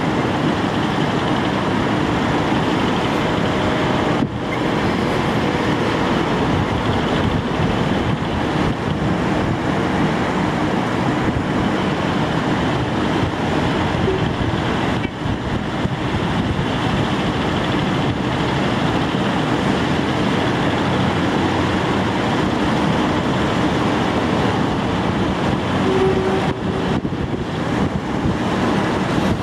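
Train running at a railway station: a steady rumble with a faint low drone throughout.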